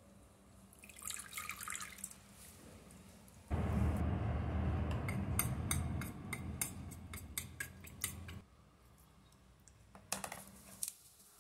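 A metal spoon stirring cornstarch into water in a glass bowl: several seconds of liquid swishing with rapid clinks of the spoon against the glass, starting about a third of the way in. A few lighter clinks of spoon on glass come near the start and again near the end.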